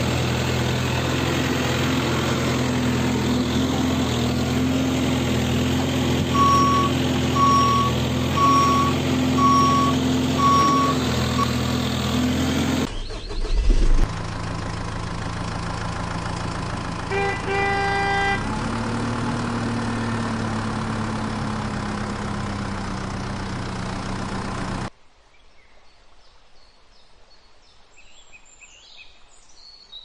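Heavy vehicle engine running steadily, with a reversing beeper sounding five times, about once a second, partway through. After a break, a second engine sound continues with a brief horn-like tone, then gives way to a much quieter stretch with faint chirps.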